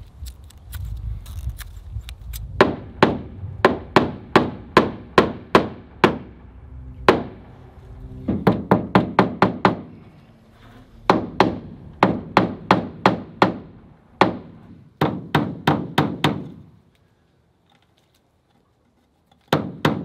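Hammer blows on the wooden board siding of a chicken coop, fastening poultry netting to the wall: runs of sharp strikes, about two a second, quickening to a fast burst near the middle. They break off about two-thirds of the way through, and one more strike comes near the end. The opening seconds hold quieter snipping and rustling of scissors in the netting.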